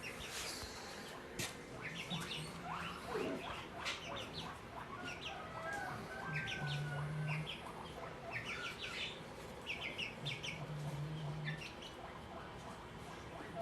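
Birds chirping: many short, high chirps scattered throughout, with a low hum coming and going underneath.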